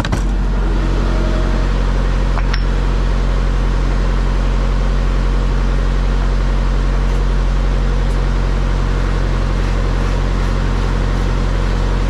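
Diesel being pumped through a high-flow truck-stop nozzle into a semi truck's fuel tank: a steady rushing flow over a constant low mechanical hum, with one sharp click about two and a half seconds in.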